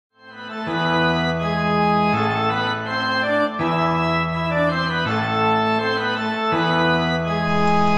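Organ music: held chords that change about every second and a half, fading in at the start.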